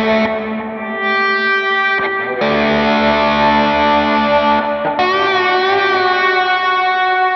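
Telecaster with single-coil pickups played with a slide through a Line 6 HX Stomp preset: light stacked overdrive, compression, delay and hall reverb. Long sustained notes, with new notes about one, two and a half and five seconds in. The last note wavers with slide vibrato and is left ringing.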